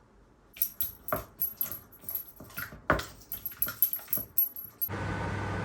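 A series of irregular light clicks and taps. Near the end a steady hiss with a low hum starts abruptly.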